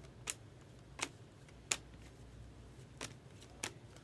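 2020 Bowman Draft Sapphire baseball cards being flipped through by hand: five short, sharp snaps at uneven intervals as card after card is pulled off the stack.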